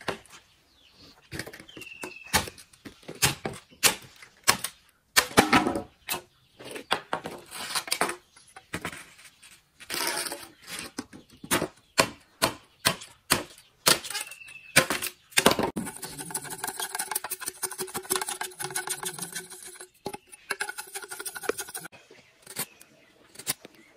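A heavy cleaver-style knife chopping and trimming green bamboo: irregular sharp knocks of the blade on the bamboo, with a few seconds of rapid, close-set strokes past the middle.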